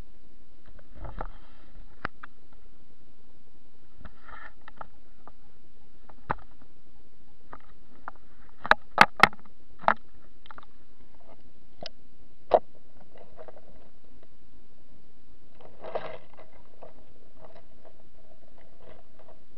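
Underwater sound of a garden pond, heard through a submerged camera: scattered small clicks and ticks over a steady low hum. About halfway through comes a quick run of four sharp clicks, then another single click a few seconds later, with a few soft crackly patches in between.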